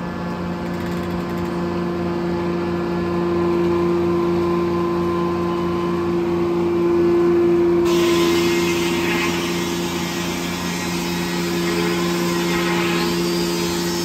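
Corley circle sawmill running: a steady mechanical drone with a strong hum from the power unit and spinning blade. About eight seconds in, a rushing hiss joins it as the blade cuts through the log.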